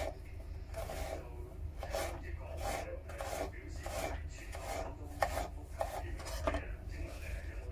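Kitchen knife slicing a yellow cucumber into thin pieces on a wooden cutting board: a steady run of cutting strokes, roughly one every two-thirds of a second.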